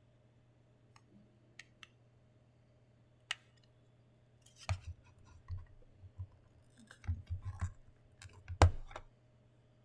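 Hands handling and opening small product packaging: scattered sharp clicks and short crinkly rustles, sparse at first and busier in the second half, with the loudest click near the end.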